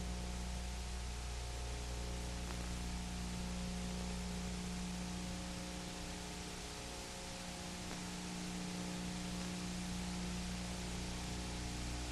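Steady hiss with a low mains hum underneath: background noise of an old analogue videotape soundtrack with nothing else recorded on it.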